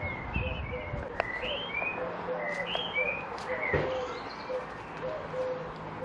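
Birdsong: a bird's short chirps repeating, each gliding up or down, over a string of short lower notes. A couple of light clicks come about one second in and nearly four seconds in.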